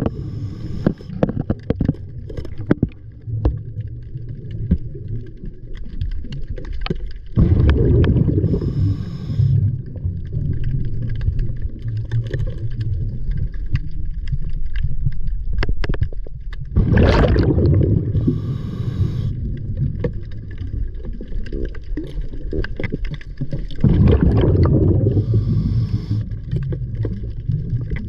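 Water churning and gurgling around the camera, a heavy low rumble that swells three times, with scattered small knocks.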